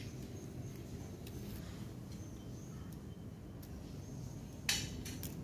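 Faint clicks and scrapes of plastic toy train track sections being handled and snapped together, with one louder scrape near the end, over a steady low hum.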